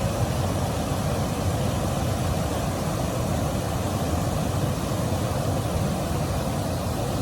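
Steady vehicle running noise: a low rumble with hiss that holds level throughout, with no bells, horn or clacks.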